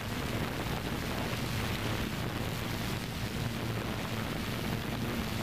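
Steady whir of a drone's motors and propellers, with the propeller wash rushing over its microphone and a constant low hum underneath.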